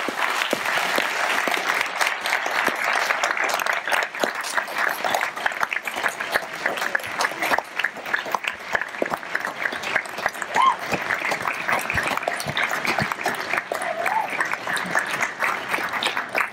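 An audience applauding: many hands clapping steadily throughout.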